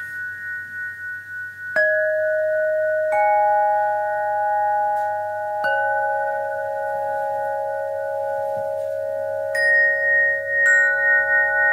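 Rock-crystal rods struck one at a time with a soft-headed mallet: five clear, bell-like notes, each ringing on long so they overlap into a sustained chord. The first three are lower; the last two, a little under a second apart near the end, are higher.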